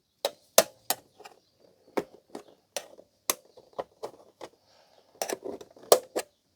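A quick series of sharp, irregular plastic clicks and taps as hands work at the clips holding a Blu-ray player's plastic front cover.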